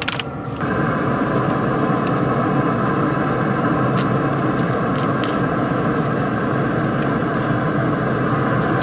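Steady whirring rumble of a pellet grill's blower fan running with the lid open, with a couple of light clinks as an aluminium foil pan is set down on the metal grates.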